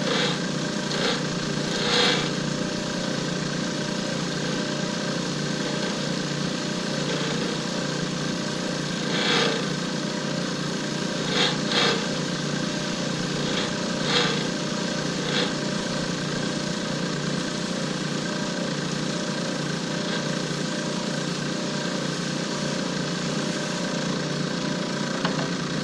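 Lathe motor running steadily with a constant hum while a tool touches the spinning cast blank in short scraping passes, about eight times in the first half.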